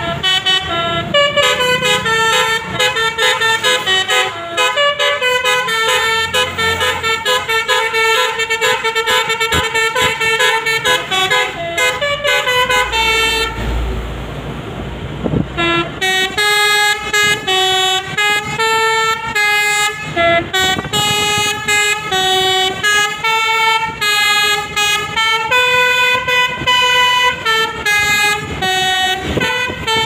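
Tour bus basuri multi-tone air horn playing a fast melody, the notes stepping up and down one after another. About halfway through it stops for roughly two seconds, leaving a low rumble and road noise, then starts another tune.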